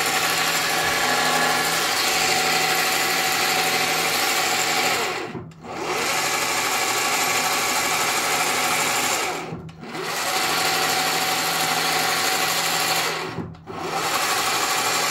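Mini lathe spindle running on a 1.2 hp brushless sewing-machine motor, a steady whir with gear noise. It winds down and comes straight back up three times, about five and a half, ten and thirteen and a half seconds in.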